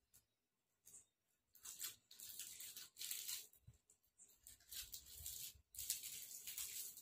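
Soft rustling and rubbing noise in two stretches of about two seconds each, with no clear pitch.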